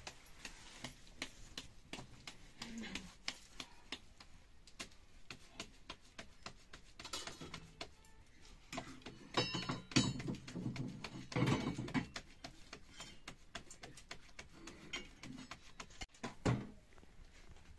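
Soft irregular pats of flatbread dough being flattened by hand, with sharp crackles from a wood fire. The patting is louder and quicker about ten seconds in, and there is one more thump near the end.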